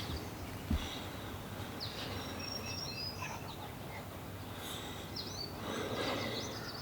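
Songbirds chirping, with short high calls about two to three seconds in and again near five seconds. A soft thump comes just under a second in, and there is a brief rustle near the end.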